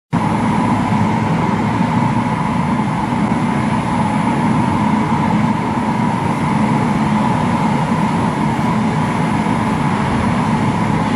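CNC spring coiling machine (YHM CF-330) running steadily, feeding and coiling 2.0 mm wire into compression springs.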